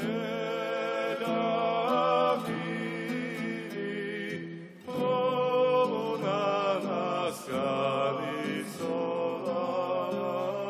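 Male vocal ensemble singing a Georgian polyphonic folk song: voices carry a moving melody over a held low drone from the group, with a short break about four and a half seconds in.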